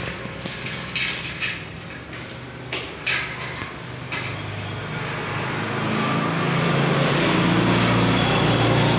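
Sharp metal clinks as a spanner works the bolt on a rolling shutter's spring collar and knocks against the steel shaft and coil spring, a few clinks in the first four seconds. Under them runs a steady low hum that grows louder in the last few seconds.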